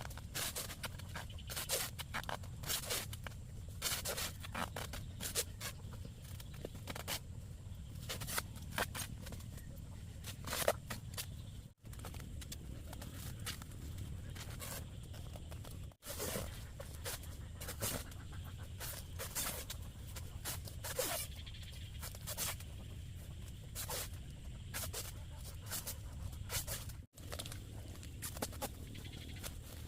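Irregular rustling, scraping and clicking of camping gear being handled, over a steady low rumble; the sound drops out briefly three times.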